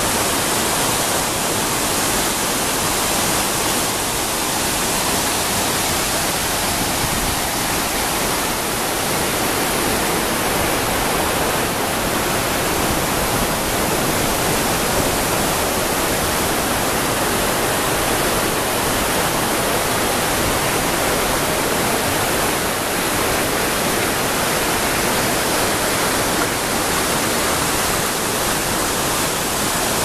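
A tall waterfall plunging into a pool: a steady rush of falling water that holds the same level throughout.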